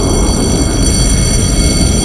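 Steady, loud low rumble with several thin, high, steady whining tones held over it, unchanging throughout.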